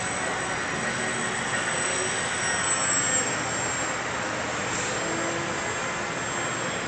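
Small scratch-built foam RC airplane in flight, its electric motor a faint high whine over a steady rushing background; the whine dips in pitch briefly about three seconds in.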